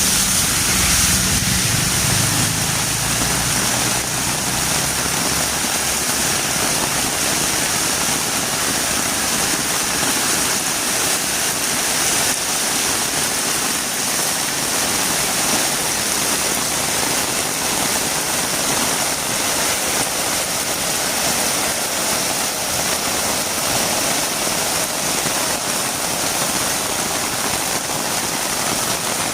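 Heavy rain falling steadily. A vehicle engine's low hum fades away in the first few seconds.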